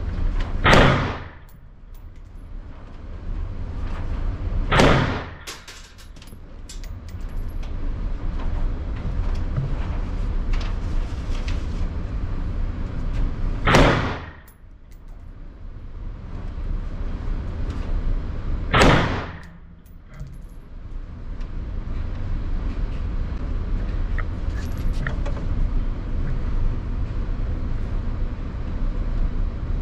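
Four single aimed shots from a Ruger AR-556 MPR rifle in 5.56 NATO, each echoing briefly in an indoor range. The shots come about a second in, at about five seconds, at about fourteen seconds and at about nineteen seconds, spaced unevenly, over steady background noise.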